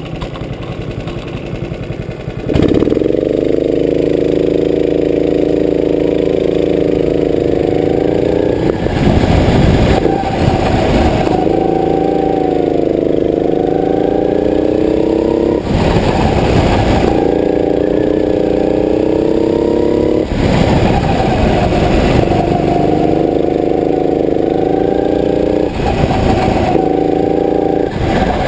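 Go-kart engine heard from the driver's seat, running quieter at first and then opening up sharply about two and a half seconds in to a loud, steady drone. Its pitch sags and climbs back as the kart goes round the track, and four times a burst of rushing noise of about a second breaks over it.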